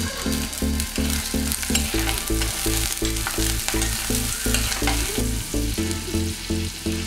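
Sliced shallots and green chillies sizzling in hot oil in a pot, stirred with a steel spoon that scrapes and clicks against the pot, over background music with a steady low beat.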